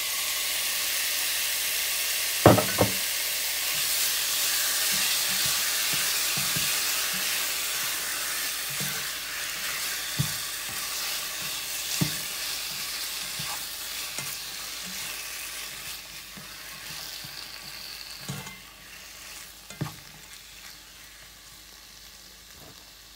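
Diced raw chicken breast sizzling in olive oil with onion and garlic over medium heat, stirred with a spatula that knocks sharply against the pan several times, the loudest knock about two and a half seconds in. The sizzle is strongest at first and gradually dies down.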